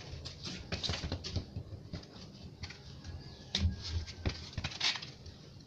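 Quick, irregular footsteps and shoe scuffs on a concrete floor as feet step over and around a football, with a cluster of heavier thuds about halfway through, in a small echoing corridor.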